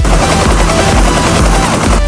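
Helicopter-like rotor whir with a fast chop, over electronic dance music whose steady beat drops out for these seconds.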